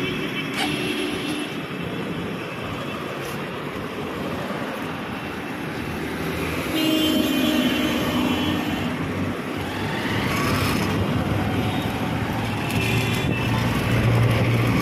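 Motorcycle riding along a busy road in traffic: its engine running under wind and tyre noise, with other vehicles passing.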